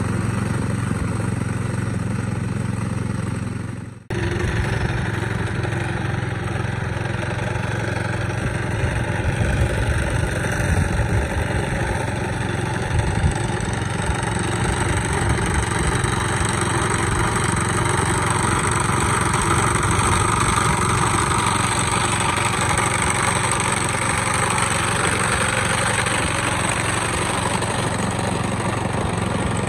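Engine of a walk-behind two-wheel tractor with a weed-trimmer attachment running steadily while it cuts tall grass. The sound breaks off for a moment about four seconds in, then carries on.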